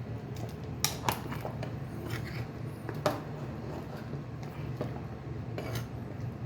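A metal utensil clinking against cookware a few times, sharp clicks about a second in, near three seconds and near the end, over a steady low hum.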